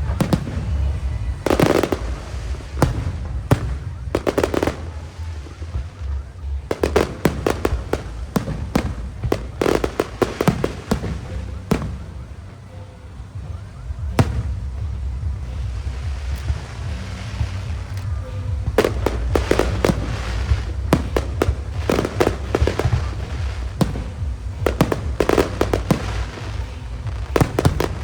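Aerial fireworks shells bursting in irregular volleys of sharp bangs and crackles, some single and some in rapid clusters, over a steady low rumble. There is a brief lull about twelve seconds in, after which the barrage picks up again.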